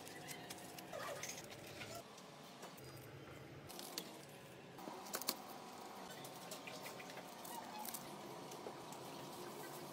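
Faint, scattered clicks and soft squishes of a plastic card cutting through a red bell pepper and mushrooms, with one sharper click about five seconds in.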